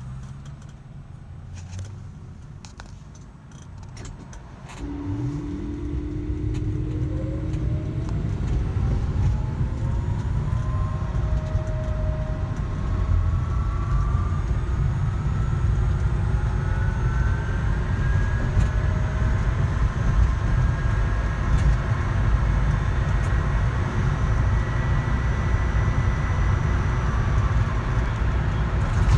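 Car, quiet with a few clicks at first, then a low rumble coming in about five seconds in. Over that rumble a whine climbs slowly and steadily in pitch for some twenty seconds: the abnormal noise the owner is recording.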